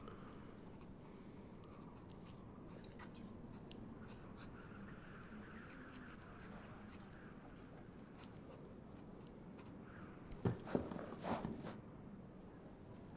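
Faint scratching of writing on notepaper over a low steady room hum, with a few louder short handling sounds about ten to twelve seconds in.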